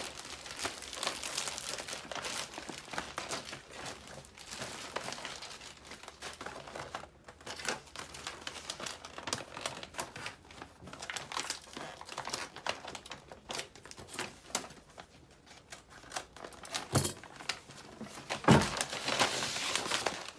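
Plastic packaging bag and paper crinkling and rustling as they are pulled and handled around a stack of plastic shelf panels. Two sharp louder knocks near the end.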